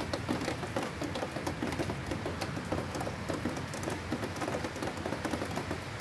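Steady rain falling, with many individual drops pattering close by.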